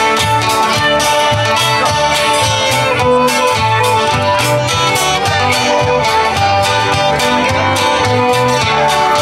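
A live country-folk band plays an instrumental passage: a fiddle holds long notes over strummed and picked acoustic guitars and other plucked strings, with a steady drum beat underneath.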